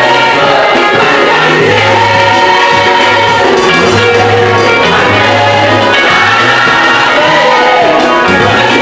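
Gospel choir singing into microphones with a live band: electric keyboard and electric bass guitar, the bass holding long low notes.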